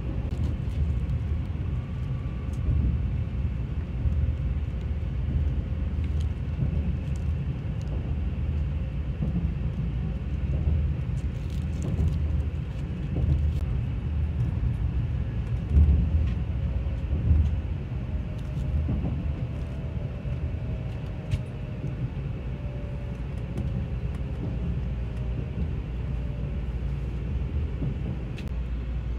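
Shinkansen bullet train running, heard inside the passenger car as a steady low rumble, with scattered faint clicks.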